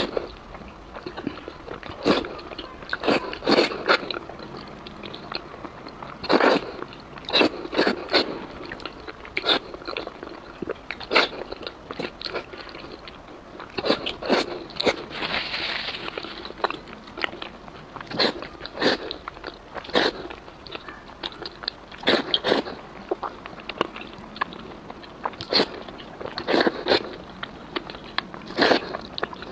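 Close-miked eating of sauce-soaked wide noodles: irregular wet mouth clicks from chewing, with a longer slurp of noodles about halfway through.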